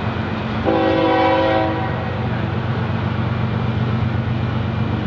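Diesel freight locomotive sounding its air horn once, for about a second near the start: a chord of several tones. Under it runs the steady low rumble of the train.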